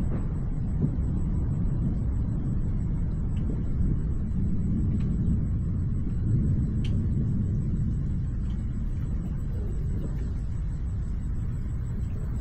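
Low rumble of distant thunder rolling on, swelling a little in the middle, with a few faint ticks.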